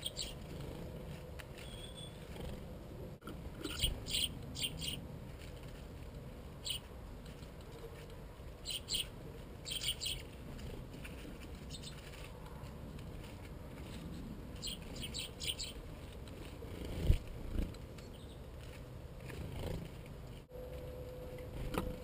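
Small birds chirping in short, quick runs of three or four high notes, several times over. A dull low thump about three-quarters of the way through is the loudest sound.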